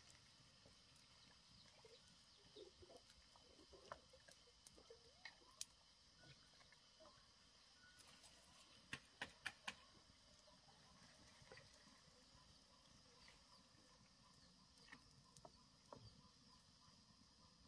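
Near silence with scattered faint clicks and knocks, including a quick run of four about nine seconds in.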